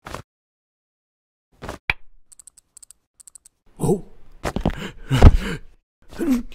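Cartoon safe-cracking sounds: a couple of clicks, then a run of faint quick ticks from the safe's combination dial being turned. After that comes a man's wordless cartoon vocalising, gasps and grunts with sliding pitch, with a heavy thump a little past the five-second mark as the loudest sound.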